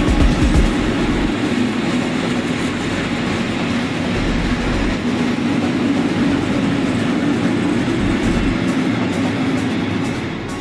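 Coal freight train of bogie hopper wagons rolling past, its wheels running on the rails in a steady rumble. The sound falls away near the end as the last wagon passes.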